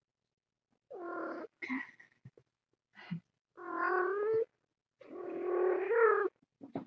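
Domestic cat meowing in three drawn-out, wavering calls, the last and longest about five to six seconds in, with a few short chirps between them.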